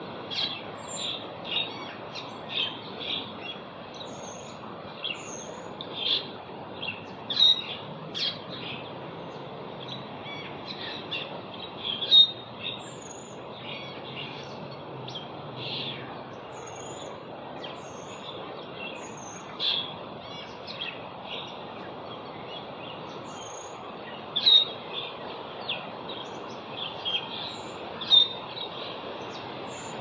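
Asian glossy starling giving a string of short, sharp, high calls at irregular intervals, over steady background noise.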